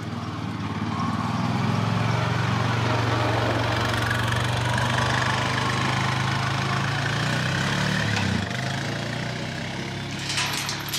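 ATV engine running steadily at low speed, easing off and quietening about eight seconds in. Near the end a metal gate chain clinks several times.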